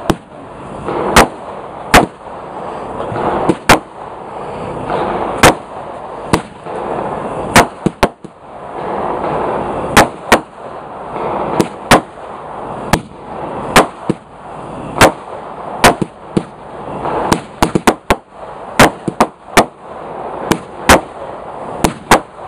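Consumer firework cakes firing one after another: a rapid, irregular string of loud sharp bangs as shots lift and break, several a second at times, with a steady hiss between the bangs.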